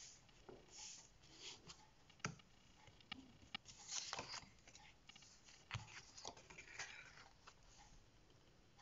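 Faint rustling and sliding of paper bookmarks handled by hand, with a few light taps of card on a wooden table, the sharpest about two and a quarter and five and three-quarter seconds in.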